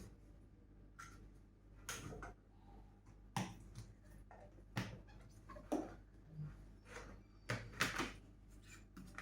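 Light clicks and knocks at irregular intervals, about one a second with a few closer together near the end, from small tools and parts being handled on an electronics repair bench.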